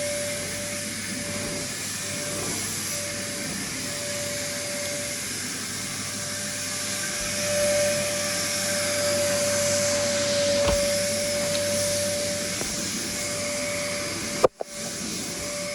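Numatic Henry HVR200 vacuum cleaner running steadily, its motor giving a steady whine over the rush of air. A sharp click and a momentary dropout come near the end.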